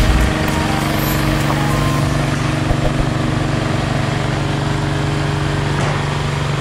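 Motor-driven machine running steadily, a constant-pitched hum over an even hiss.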